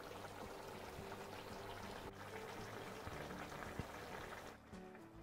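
Chicken and fenugreek curry simmering in a frying pan: a faint, steady bubbling hiss. It falls away near the end.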